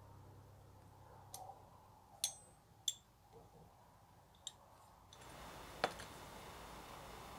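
Five sharp, short metallic clicks, spaced about a second apart, from a small brass charcoal iron being handled: its hinged lid and latch are opened and shut by hand.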